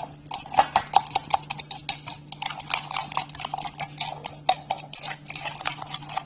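A spoon stirring butter, brown sugar and cinnamon in a bowl, with quick, irregular clinks and scrapes against the bowl's side.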